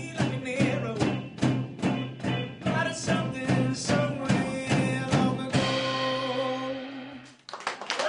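Cello music played with quick rhythmic percussive strokes over a held low note, then a sustained chord that rings and cuts off near the end.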